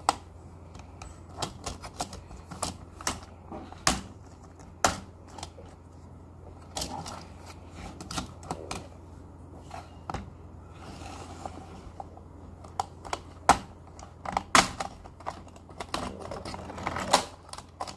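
Hard plastic parts of a Hot Wheels Stunt and Splash Car Wash playset being handled and snapped together: irregular sharp clicks and knocks, some in quick little clusters.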